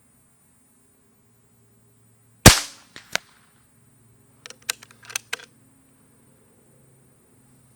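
Beeman QB Chief .22 PCP air rifle firing one shot, a single sharp crack with a short tail, followed by two small clicks. About two seconds later comes a quick run of sharp clicks.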